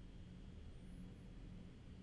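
Near silence: steady low room tone and faint hiss.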